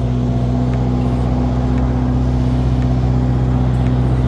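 Backhoe engine running steadily with a low, even drone.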